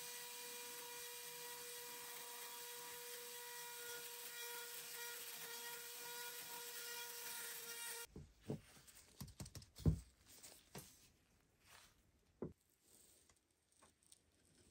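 Flexible-shaft rotary tool running at a steady pitch, its bit boring through a nail hole of the horseshoe into the wooden slab beneath. It cuts off about eight seconds in, followed by scattered clicks and knocks of the horseshoe being handled on the wood, the loudest about ten seconds in.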